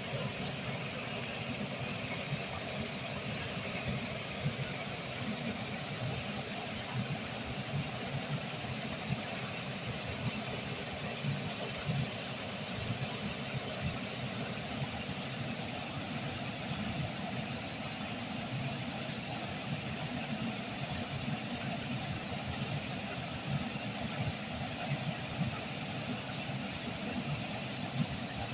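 Waterfall: a steady rush of falling water, an even hiss over a low rumble.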